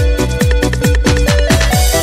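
Electronic dance music with a heavy kick drum about four times a second under a stepping synth melody, with a hissing sweep rising near the end.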